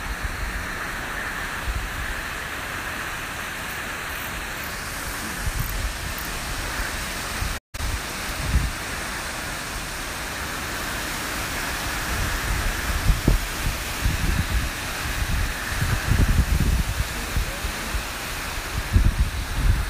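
Hurricane wind and rain: a steady rushing noise with gusts buffeting the microphone, the gusts growing stronger in the second half. The sound cuts out for an instant about eight seconds in.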